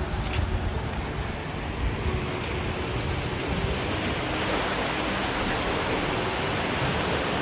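Swollen, fast-flowing canal floodwater rushing past, a steady, even roar of water that grows slightly louder, with a low rumble beneath it.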